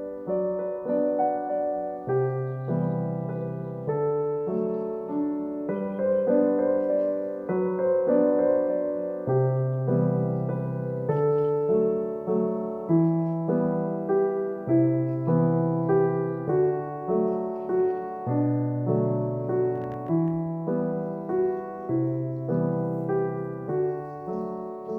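Gentle solo piano music: a slow, lilting melody over a bass line, notes struck about twice a second.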